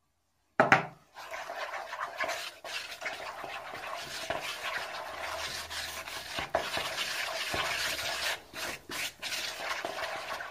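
A spoon stirring and scraping thick flour-and-milk dough in a plastic mixing bowl: a sharp knock about half a second in, then continuous scraping as the flour is worked into the milk.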